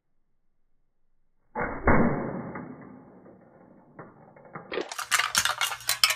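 A sudden muffled bang that dies away over a couple of seconds, then a quick run of sharp metallic clattering and clinking.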